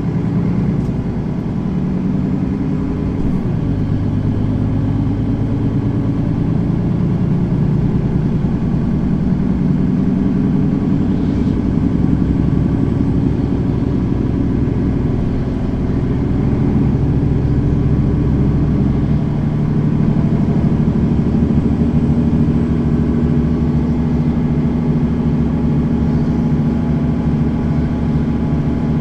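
Engine of a Mercedes-Benz Citaro facelift city bus running while the bus drives, heard from inside the passenger cabin; the engine note rises and falls a few times with speed.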